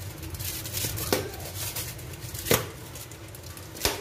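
Red plastic lid of an airtight food container being pressed down onto the container, clicking into place three times, the last two clicks the loudest.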